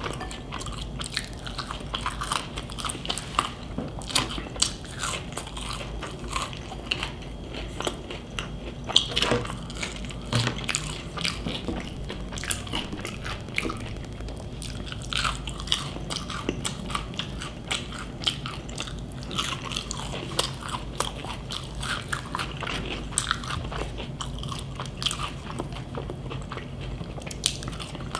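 A person chewing and biting fast food, mukbang-style: a steady run of small mouth clicks and smacks, with sharper bites here and there, one of the strongest about nine seconds in.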